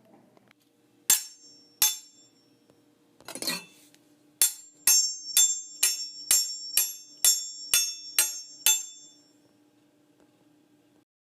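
Sharp, ringing clinks of a hard object striking something that rings: two single strikes, a brief rattle, then a run of about ten strikes at roughly two a second.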